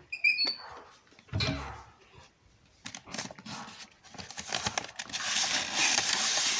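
A short high squeak right at the start, a knock about a second and a half in, then sheets of paper rustling loudly for the last two seconds as they are handled and pulled out of a cabinet.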